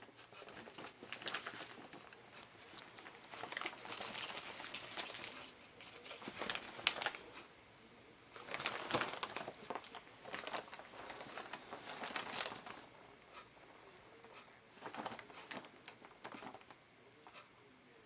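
A cat playing with a silvervine ball toy, making scuffling, scratching and rustling sounds in irregular bursts, loudest about four to seven seconds in.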